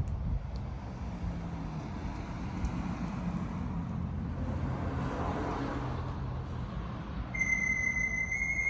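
Road traffic: a steady low rumble, with a vehicle passing that swells and fades about halfway through. A steady high tone comes in near the end.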